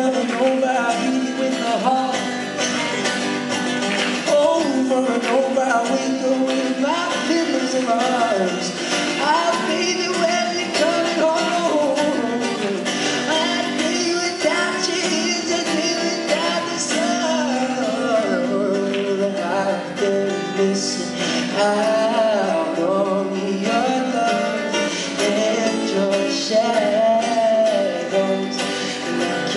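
Male voice singing live to a strummed acoustic guitar.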